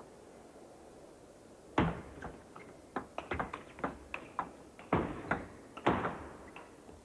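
Table tennis rally: the ball clicking sharply off the bats and the table in a fast back-and-forth exchange, starting with the serve about two seconds in.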